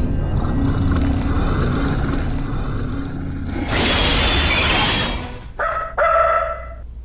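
A dark, low rumbling drone from a horror film soundtrack. About four seconds in a hissing swell rises over it, and near the end two short sharp sounds are followed by a pitched, animal-like cry.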